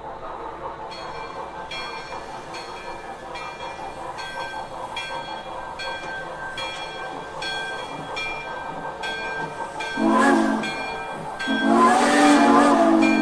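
Sound system of a Broadway Limited model of a New York Central J-1e Hudson steam locomotive: steady steam chuffing, about one chuff every 0.8 s, then near the end its steam whistle sounds a short toot followed by a longer blast.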